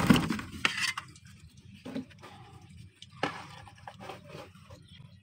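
A hand gathering and rubbing a cloth sheet: a thump at the start, a few sharp ticks, then brief scrapes and faint rustling.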